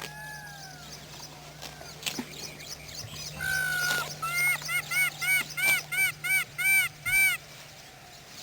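A bird calling: a short held note, then a quick run of about ten ringing, arched notes that get louder toward the end, over fainter calls from other birds.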